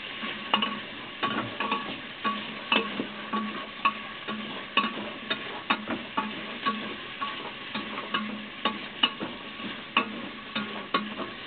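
Pork sautéing with garlic and onions in a pan, sizzling steadily while a utensil stirs it. The utensil knocks and scrapes against the pan about twice a second.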